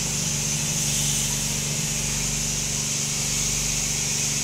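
Powered sheep-shearing machine running steadily as the handpiece cuts through fleece: an even mechanical hum with a high hiss.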